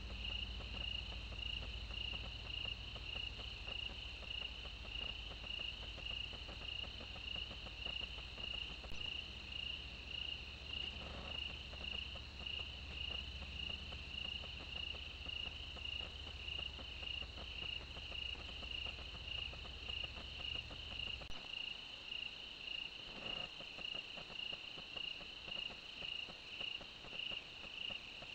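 Night chorus of crickets: a steady high-pitched chirping that pulses evenly a few times a second, with a fainter insect trill above it. A low hum underneath cuts off suddenly about 21 seconds in.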